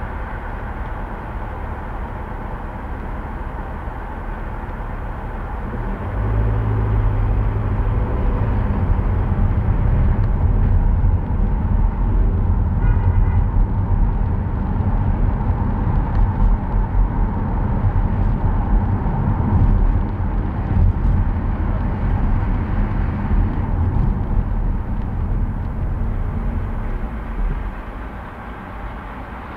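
A car driving, with a steady low rumble of engine and road noise that grows louder about six seconds in and drops back near the end.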